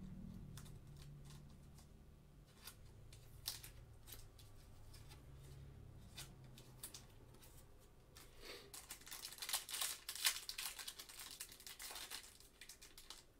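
Faint rustling and a few light clicks as a trading card is slid into a plastic penny sleeve. About eight seconds in, louder crinkling and tearing begins as a plastic card-pack wrapper is handled and torn open.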